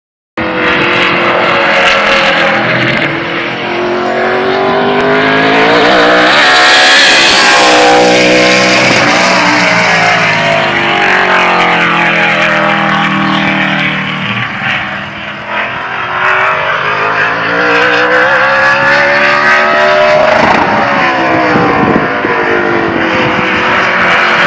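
ARCA stock car's V8 engine running hard at speed around the track, its pitch rising and falling repeatedly as it accelerates and lifts.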